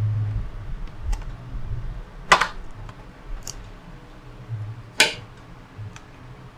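Small clicks and taps of laptop parts and screws being handled during disassembly, with two sharper clicks about two and five seconds in.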